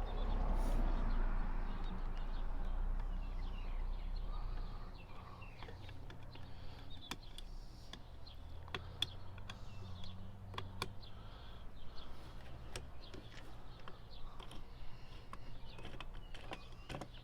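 Hand tools and small metal chainsaw parts clicking and clinking during disassembly, in scattered sharp ticks. A louder low hum runs through the first few seconds and fades out about five seconds in.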